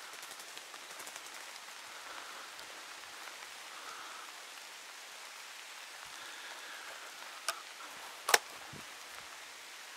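Steady rain falling on leaves and grass. A small sharp click comes a little after seven seconds, then a loud, sharp crack about a second later.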